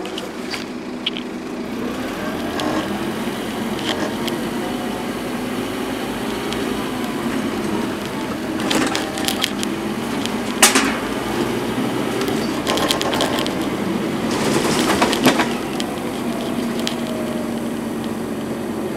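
Scania N230UD double-decker bus's five-cylinder diesel engine running, heard from inside the passenger saloon, its pitch rising and falling as the bus drives. Loose interior panels and windows rattle and click over it, with a sharp crack about eleven seconds in and rattly spells around the middle.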